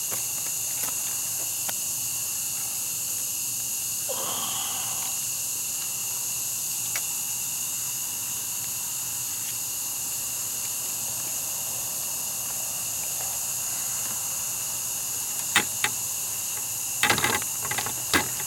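Steady high-pitched chorus of evening insects such as crickets. There is a short sound about four seconds in, and several sharp clicks and knocks near the end.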